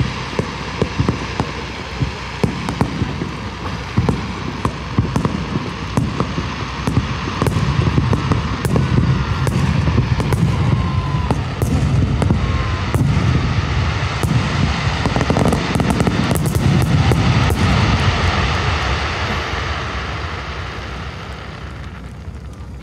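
Fireworks display: a quick string of shell bursts with crackling, thickening into a dense barrage of heavy booms in the middle, then fading away near the end.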